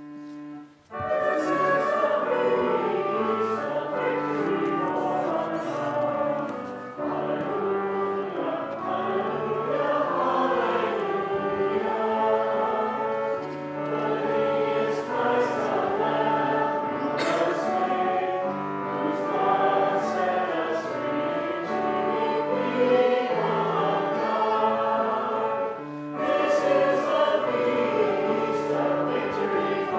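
Choir singing, with instrumental accompaniment. A held note sounds first, and the voices come in about a second in.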